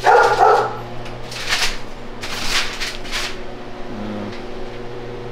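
Paper and plastic masking sheets rustling, in three short swishes through the middle, over a steady low hum.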